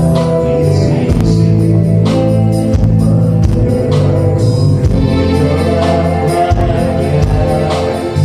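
Live band playing a song: a strong steady bass line and a regular drum beat under held chords, with a voice singing.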